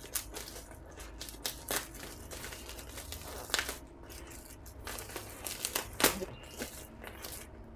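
Plastic bubble-wrap packaging crinkling and crackling as it is handled and pulled open, in irregular sharp crackles, the loudest about three and a half and six seconds in.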